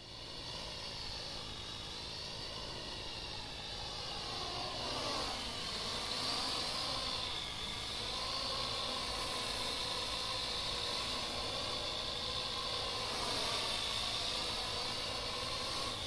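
Parrot AR.Drone quadcopter's motors and propellers whining in flight, several tones together; the pitch dips and rises again about five seconds in as the motors change speed.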